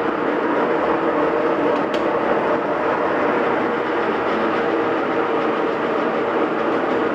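GE GTWN2800D1WW top-load washing machine on high-speed spin with a failed bearing: a steady, very loud rumbling roar with a whine, like a freight train. Which bearing has gone (tub, transmission or motor) is not yet known.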